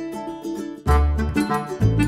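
Background music led by plucked strings. Just under a second in, a deep bass comes in and the music gets louder.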